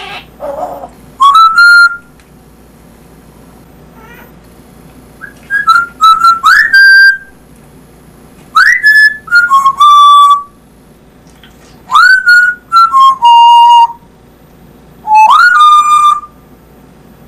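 African grey parrot whistling: five loud bursts of whistles, each sweeping up and settling into a held note, several stepping down in pitch.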